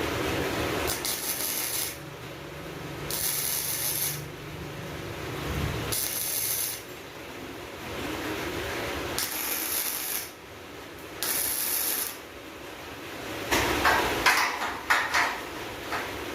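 Metal hardware worked by hand, making five short ratcheting, rasping strokes of about a second each, a few seconds apart. Near the end comes a brief clatter of metal knocks.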